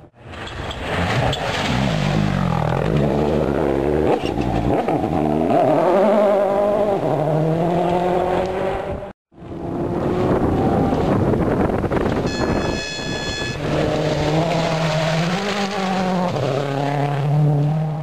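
World Rally Cars' turbocharged engines running hard as the cars pass on a gravel stage, the engine note repeatedly climbing and dropping through gear changes. One car's pass is followed, after a brief gap, by another's, with a short high steady tone a little past the middle.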